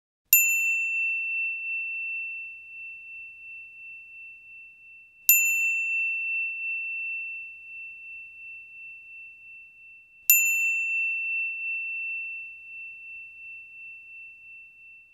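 A small bell struck three times, about five seconds apart, each strike ringing on as a single clear high tone that slowly fades.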